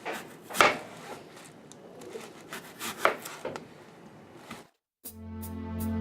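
Knife cutting an apple on a cutting board: a few irregular knocks of the blade with scraping between them. The sound stops sharply, and background music comes in near the end.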